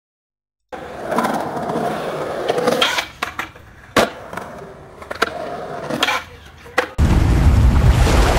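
AI-generated sound effects from MMAudio: a rolling noise with several sharp knocks, then about seven seconds in a sudden switch to a steady, heavy, low rumbling noise.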